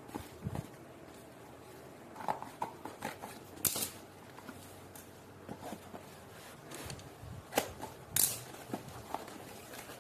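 Scattered light clicks and crinkly rustles of small plastic items being handled, such as keyboard switches and their packaging, at an irregular pace. The two sharpest crinkles come just before the middle and near the end.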